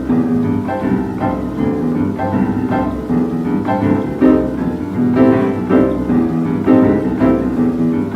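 Boogie-woogie piano playing an instrumental passage, with steady rhythmic chords, heard from an old 78 rpm record.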